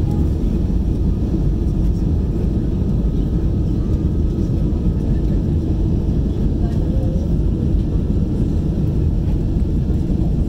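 Steady low roar inside the cabin of an Airbus A320 in its climb after takeoff: engine and airflow noise.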